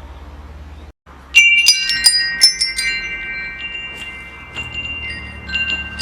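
Metal wind chimes struck in a cluster about a second in, ringing with several long overlapping tones that fade slowly, with a few lighter strikes near the end. Before the chimes, a low rumble stops abruptly with a brief gap.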